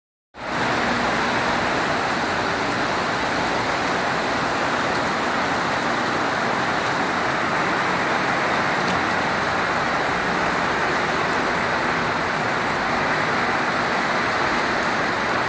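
Heavy rain downpour: a dense, steady hiss of rain falling on tile roofs, parked cars and wet pavement.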